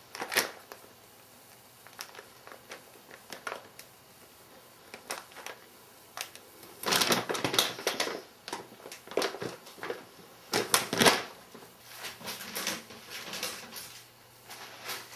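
A double-woolly lion's head rabbit crunching snacks: irregular crisp clicks and crunches, with louder clusters about seven and eleven seconds in.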